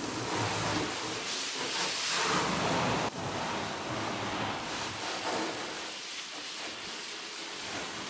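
Pressure washer jet hissing as it sprays onto a fertiliser spreader's hopper and frame, steady apart from a brief break about three seconds in.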